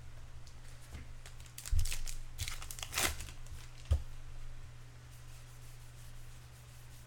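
A trading-card pack wrapper being torn open, with a crinkly rip about two seconds in and a few light knocks of handling.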